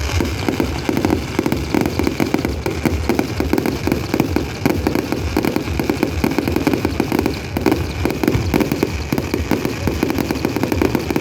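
Fireworks going off in a dense, continuous run of rapid pops and crackles.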